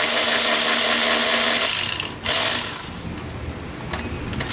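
Cordless power tool with a socket whirring as it runs intake manifold bolts in: one run of about two seconds, a brief second run, and another starting near the end.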